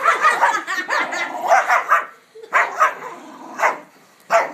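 Small dog growling and barking in playful aggression as it attacks a pillow: a dense run of growl-barks for about two seconds, then three short bursts with gaps between them.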